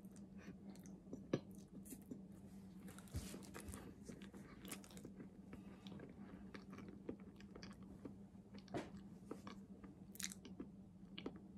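Faint mouth sounds of a person chewing soft banana: scattered small wet clicks and smacks, over a steady low hum.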